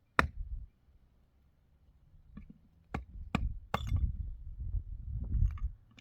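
Chopping: a final stroke right at the start ends a quick, even series. After a quiet pause, three sharp strokes come about three seconds in, about 0.4 s apart. A low, uneven rumble of handling noise follows to the end.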